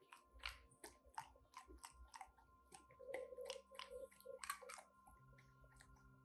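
English cocker spaniel crunching ice cubes in its mouth: a run of sharp crunches, about three a second, that stops about five seconds in.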